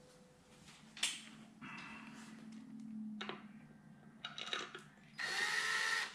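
Cordless drill-driver running in the clutch cover screws of a Ducati 400SS engine. A sharp click and handling noises come first, then a few short trigger bursts, then about a second of steady motor whir near the end, the loudest sound.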